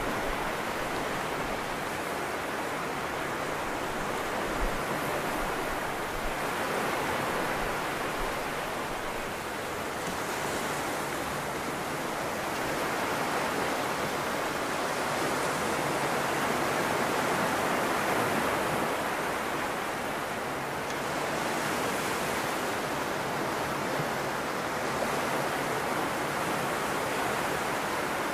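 Small waves breaking and washing up a flat sandy beach: a steady surf hiss that swells and eases slowly, loudest in the middle of the stretch.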